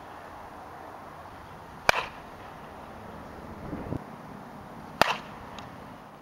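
Softball bat striking the ball twice, about three seconds apart: each hit a sharp crack with a short ring.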